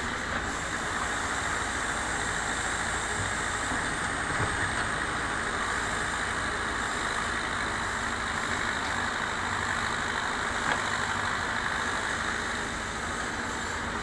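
Terex TLB 740S backhoe loader's diesel engine running steadily under load while the backhoe arm digs and swings soil.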